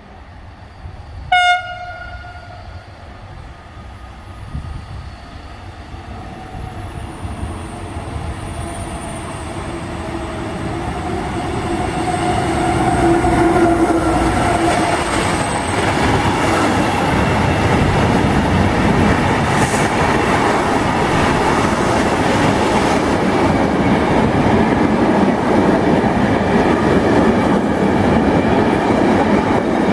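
A single short, loud horn blast from an approaching electric freight locomotive about a second in. The train's running noise then grows louder as it nears, with faint tones falling in pitch as the locomotive goes by, and turns into the steady loud rumble of empty container flat wagons rolling past on the rails.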